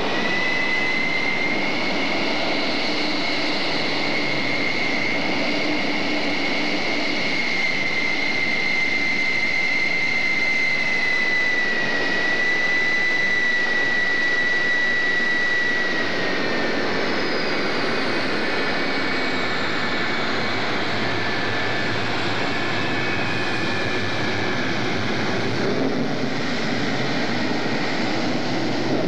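Twin General Electric J79 turbojets of an F-4G Phantom II running at taxi power as the jet rolls past: a steady high whine over a noisy rumble, the whine dropping slightly in pitch about halfway through.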